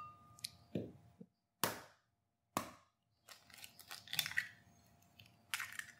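An egg cracked on a flat surface and pulled apart over a ceramic bowl: a few sharp, separate knocks, then a short run of small shell crackles and clicks.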